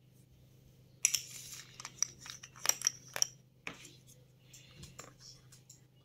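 Small plastic parts being handled and taken apart: a burst of rustling and sharp clicks about a second in, the loudest clicks around three seconds in, then a few fainter taps.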